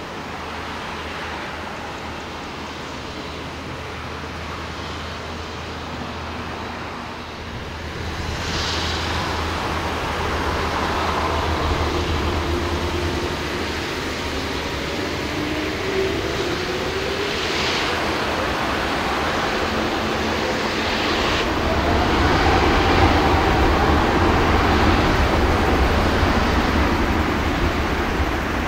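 Twin-engine Airbus widebody airliner's jet engines during takeoff: a deep rumble that builds from about a third of the way in, with engine tones sliding in pitch. It is loudest in the last quarter.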